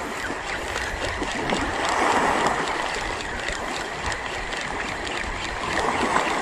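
Seawater washing and splashing against shoreline rocks: a steady rush that swells a little about two seconds in.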